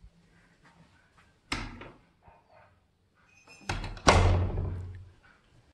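A wooden door being opened by its metal knob: a knock about a second and a half in, then the latch and door clunking loudly about four seconds in, ringing on briefly.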